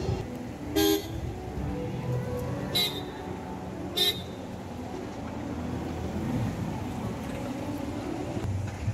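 Steady road traffic with a short car horn toot about a second in, followed by two brief sharp sounds about three and four seconds in.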